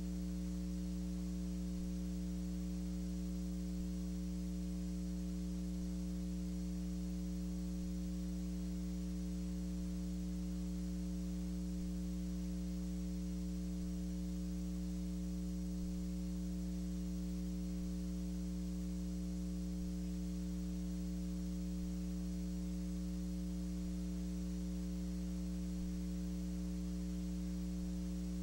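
Steady electrical mains hum, a low buzzing tone with several overtones and nothing else: the kind of hum picked up on the audio line when a silent film is transferred to video.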